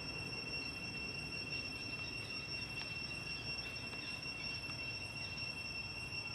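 Forest ambience: a steady, unbroken high-pitched insect drone over a low background rumble, with a few faint short chirps in the middle.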